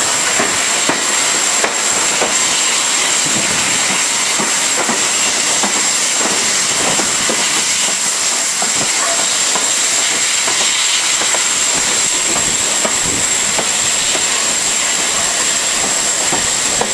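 GWR King class four-cylinder 4-6-0 steam locomotive 6023 'King Edward II' hauling the train, heard from the coach right behind its tender: a loud, steady hiss of steam and rushing air over irregular clicks and clatter of wheels on the rails.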